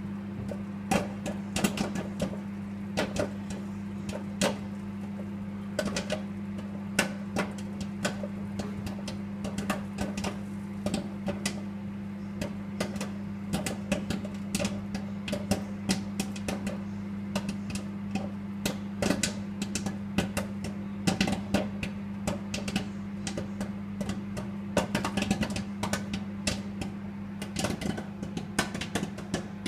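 Microwave oven running with a steady low hum while popcorn pops inside it: scattered sharp pops at irregular intervals, coming more often near the end.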